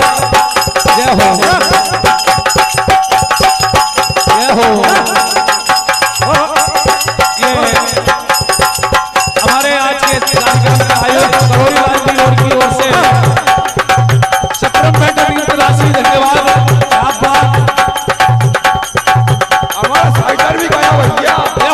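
Live Indian devotional bhajan music played by a dholak drum and jingling hand percussion over steady held notes. From about halfway through, the drum's deep strokes fall into a steady beat of about two a second.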